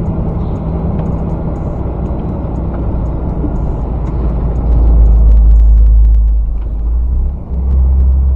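Tanker truck under way: steady engine and road noise. A deep, loud low rumble swells in about halfway through, drops out briefly near the end, then returns.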